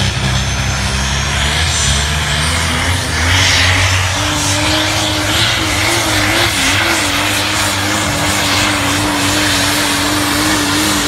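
Competition pulling vehicle's engine running flat out under load. Its pitch climbs over the first few seconds, then holds steady, wavering briefly midway.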